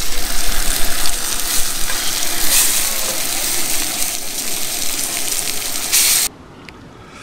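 Beef steaks sizzling loudly in a hot cast-iron skillet on a portable gas camp stove. The sizzle cuts off suddenly about six seconds in.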